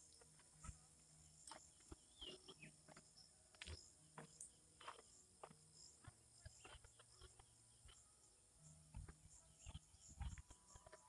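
Faint countryside ambience: a steady high-pitched insect drone, with scattered soft clicks and rustles.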